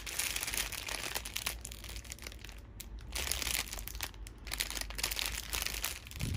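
Clear plastic packaging crinkling and rustling irregularly as it is handled and turned, a bag full of small sealed packets of diamond-painting drills.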